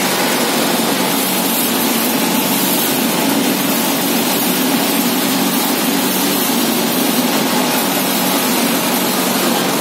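Cocoa pod splitting machine running with nothing being fed, a steady mechanical drone with a low hum that does not change.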